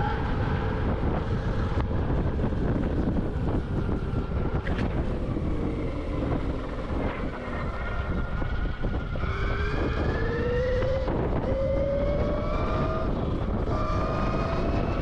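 Electric dirt bike riding a dirt trail: the motor's whine rises in pitch as it speeds up, twice in the second half, over heavy wind buffeting on the microphone.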